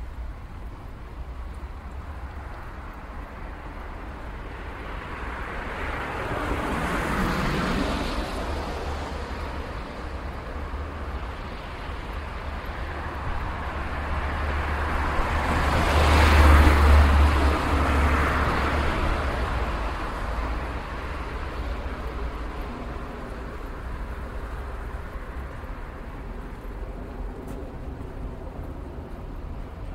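City street traffic: a steady low rumble with two vehicles passing close by, the first about seven seconds in and a louder one with a heavy low rumble about sixteen seconds in, each swelling and fading away.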